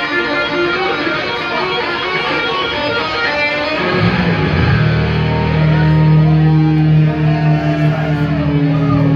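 Live band playing loudly, led by electric guitar. About four seconds in, the band settles onto a held chord with a strong, steady low bass note that rings on.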